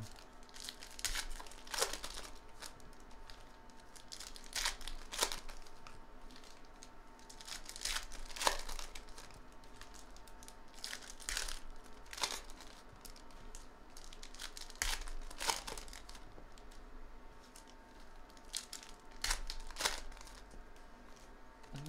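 Foil wrappers of baseball card packs being torn open and crinkled by hand, in short crackly rustles every second or two, with cards being handled between them.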